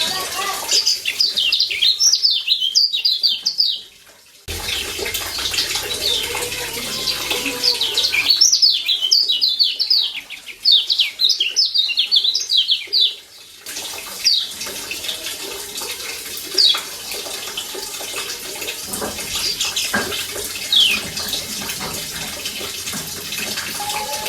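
Kecial kuning (Lombok yellow white-eye) giving fast runs of sharp, falling 'ciak' chirps in two bursts, then scattered single notes, over a steady sound of running water.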